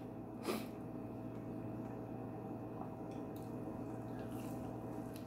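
Faint mukbang eating sounds over a steady room hum: a short sharp click about half a second in, then a few soft ticks and small mouth noises as a piece of food is bitten.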